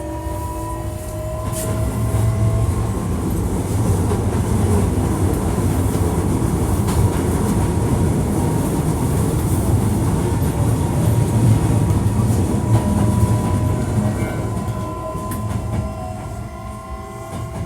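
Hankyu 1300 series train running between stations, heard from inside the car: a steady rumble of wheels on track with motor whine tones that rise at the start and come back in the second half, and a few clicks from the rails. This car is one the recordist labels as having an abnormal noise.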